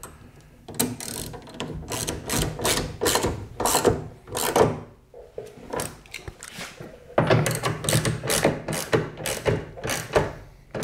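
Hand socket ratchet clicking in quick back-and-forth strokes as it tightens down the fasteners of a door's window seal, in two runs with a pause of about two seconds between them.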